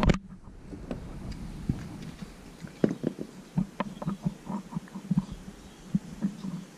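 Plastic Lego pieces being handled and pressed together: a run of small irregular clicks and taps as a black frame piece is fitted to the model, with a sharp click at the start.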